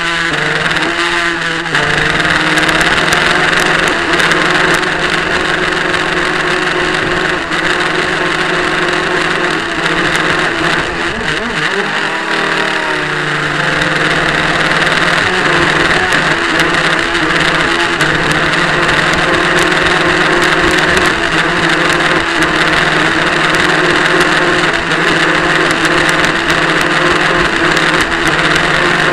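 RC model powerboat's motor running steadily at speed, picked up close by a camera on board the hull, with water rushing past. About twelve seconds in the pitch briefly wavers and the level dips before it settles again.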